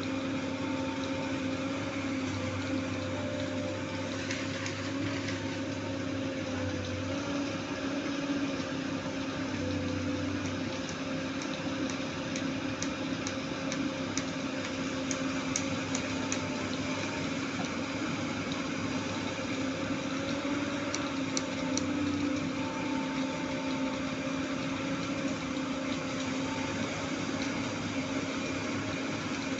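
Sany excavator's diesel engine running at a steady pitch. Faint ticks come in runs partway through and again later on.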